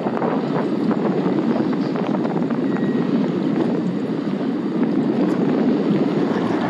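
Outboard motor of a panga running steadily, a constant fluttering drone.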